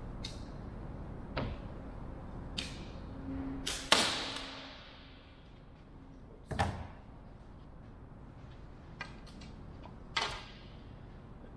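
A staple gun driving staples into thin wood strips to tack them together temporarily: about seven sharp snaps spaced a second or two apart. The loudest comes about four seconds in and echoes off a large hall.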